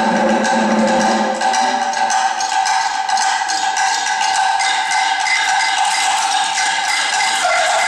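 A percussion ensemble playing a fast, dense rhythm together on a row of snare drums, sticks striking continuously with the drums ringing. A deeper drum part drops out about a second and a half in, leaving the higher, brighter strokes.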